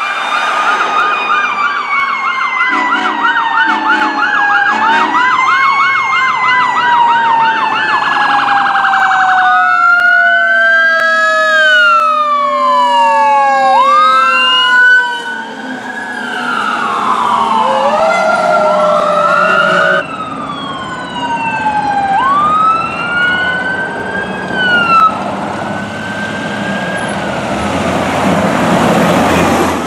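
Sirens of responding fire trucks: a fast yelp, then slower wails rising and falling, over a siren tone that slides slowly down in pitch. The sound changes abruptly several times.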